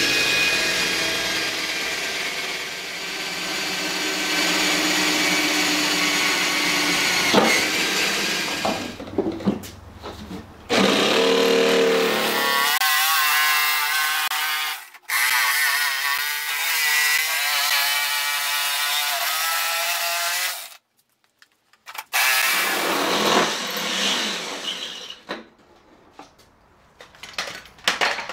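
Cordless drill boring a starter hole through an aluminium-skinned trailer door, then a corded jigsaw cutting out the vent opening, its pitch wavering as it loads up. The saw stops and restarts a few times, with a brief silence about two-thirds through, and is followed by a few light clicks and knocks.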